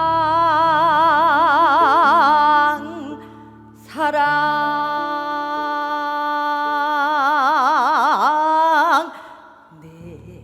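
A singer holds two long notes in Korean traditional vocal style, each with a wide, heavy vibrato, over a steady keyboard accompaniment. The second note ends with a downward slide a little before the end, and the accompaniment carries on alone.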